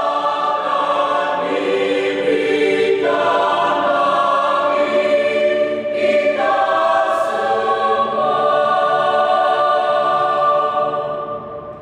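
Mixed choir of men and women singing held chords in parts, the harmony shifting about three and six seconds in, then dying away near the end as the phrase closes.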